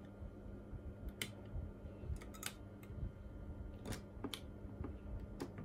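About half a dozen sharp little clicks and taps, scattered and irregular: a tool and fingers working the plastic stick gimbal and its spring inside an opened RC transmitter. A faint steady hum lies underneath.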